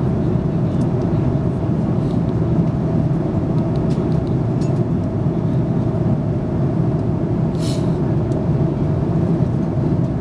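Steady drone of a jet airliner's cabin in flight: engine and airflow noise with a low hum. A brief hiss near the end.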